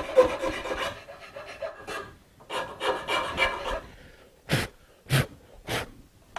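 Fine file rasping in quick strokes across the wooden dovetail pins, easing a joint that is too tight, stopping about four seconds in. Then three short puffs of breath blowing the filing dust away.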